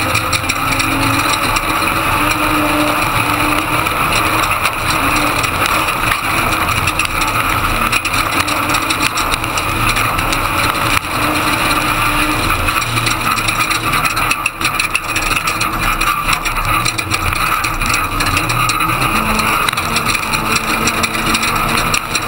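Ford Ranger desert race truck running hard over rough desert, heard from inside the cab: loud, steady engine and road noise with constant knocks and rattles, the engine note shifting up and down with the throttle.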